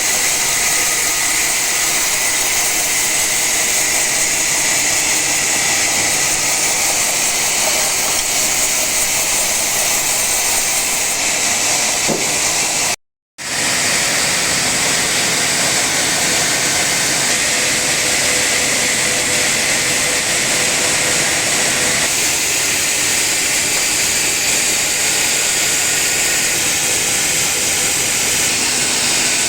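Sawmill saw running steadily through an old teak log, a loud even machine noise with a hissing top, broken once by a short silence about halfway through.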